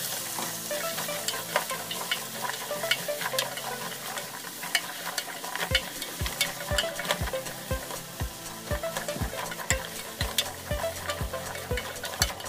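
Chicken and vegetables sizzling in hot oil in a pan while being stirred, with crackles and the clicks of a spatula against the pan. From about halfway through, a steady low thump comes in about twice a second.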